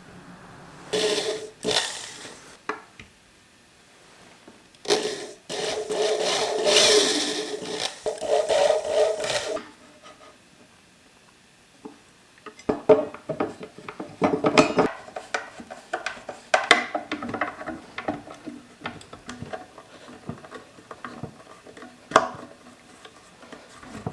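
Hand work on a toolbox: two spells of rubbing and scraping, then a string of scattered knocks and clicks as it is handled.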